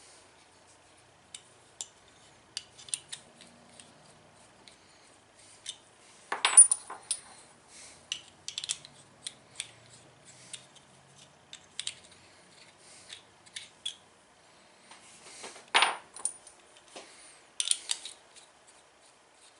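Small metal objects clicking and clinking in irregular handling, with two louder clanks about six and a half and sixteen seconds in.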